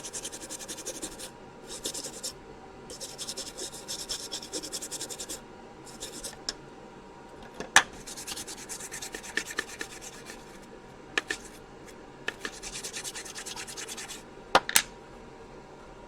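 Old toothbrush scrubbing a printed circuit board, cleaning out the desoldered CPU socket holes: quick brushing strokes in spells of a second or two with short pauses, and a couple of sharp clicks.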